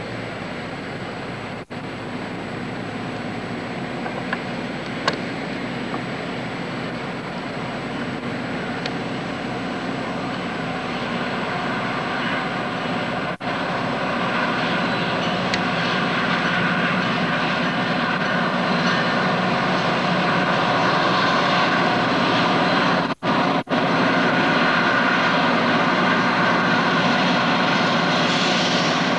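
Amtrak F40PH diesel locomotive's engine droning as the passenger train approaches, growing steadily louder. The sound cuts out for a split second a few times.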